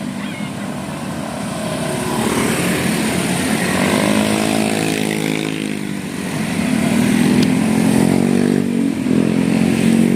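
Motor vehicles passing on a road. One engine falls in pitch as it goes by about four seconds in, and further engines follow from past the middle.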